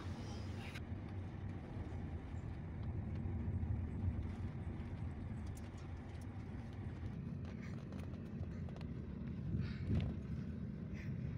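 Low, steady rumble of a car's engine and tyres heard from inside the cabin while driving slowly, with a few faint light knocks.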